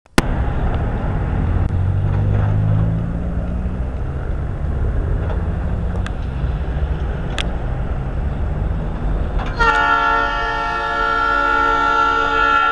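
Low rumble of approaching EMD GP38-2 diesel locomotives. About nine and a half seconds in, the locomotive's multi-note air horn starts and is held as one steady chord.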